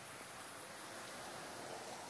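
Soft rustling of cut palmyra palm fruit husks and peelings being handled, over a steady high-pitched hiss, with no distinct knife strikes.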